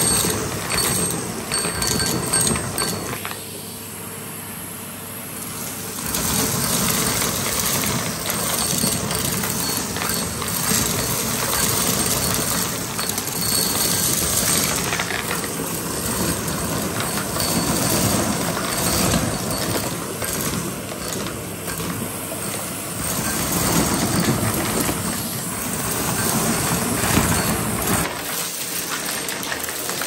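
Numatic Hetty HET-160 tub vacuum cleaner running, its bare metal wand sucking small stones off a carpet, the stones clattering and rattling as they are drawn up the tube and hose. Briefly quieter a few seconds in.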